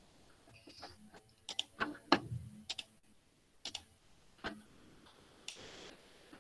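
A handful of sharp computer mouse clicks at irregular intervals, followed near the end by a brief soft rush of noise.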